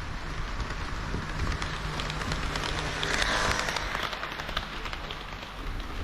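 HO-scale model KiHa 40 and KiHa 58 diesel railcars running along the track: a continuous rattle of small wheels on the rails with many tiny clicks, growing louder about three seconds in.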